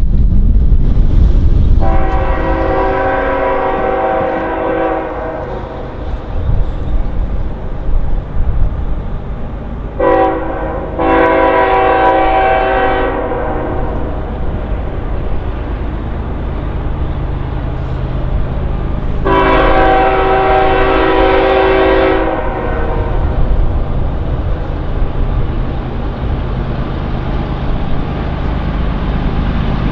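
Diesel freight locomotive's multi-chime air horn sounding four blasts: a long one, a short one quickly followed by a longer one, then another long one, over the steady low rumble of the locomotives and train.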